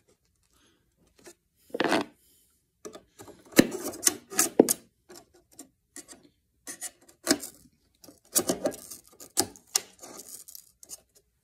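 Screwdriver prying between a thin aluminum drip-edge strip and a wooden speaker baffle to back out small finish nails. After a quiet start come irregular scrapes and sharp metal clicks.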